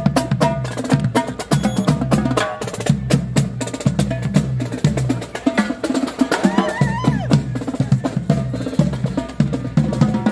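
Marching drum line of snare drums and a set of tenor drums playing a fast cadence on the move, rapid sharp stick strokes on the drumheads.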